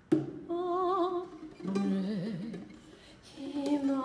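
Noh chanting by a female voice, held notes with a wide, wavering vibrato in three short phrases, set against sharply plucked lute notes; the sound enters suddenly at the start.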